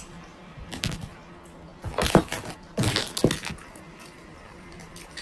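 Eating and handling noises close to the microphone: three short clusters of clicks and crackles, about a second in, at two seconds and around three seconds.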